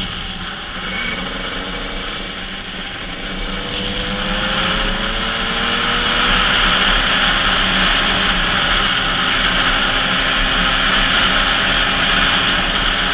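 KTM 85 SX two-stroke single-cylinder engine pulling under load as the bike is ridden, its pitch climbing slowly and its level rising as it picks up speed. Wind noise rushes over the helmet camera.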